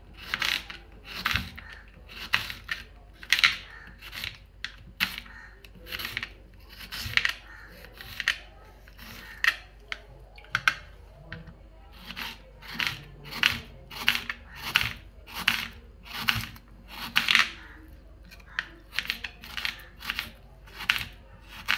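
Kitchen knife slicing a red onion on a plastic cutting board: a crisp crunch with each stroke through the onion, a little more than one stroke a second, in an even rhythm.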